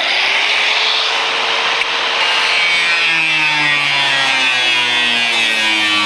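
An electric power tool cutting into the rusted sheet metal of a car's rocker panel. The motor spins up at the start, then runs with a steady hiss, and its pitch sags gradually from about halfway through as it bites into the metal.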